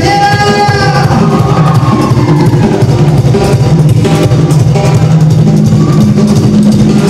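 Band music, an instrumental passage without singing: a drum kit keeps the beat under a steady bass line, with a lead melody gliding over it in the first second or so.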